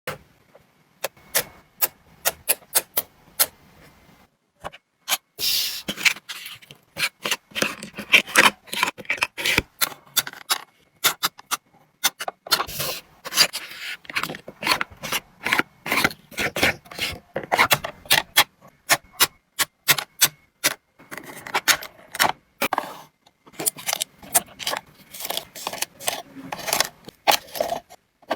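Items being handled and set into a mini fridge: many sharp clicks and taps with stretches of rubbing and scraping. Sparse at first, busier from about five seconds in.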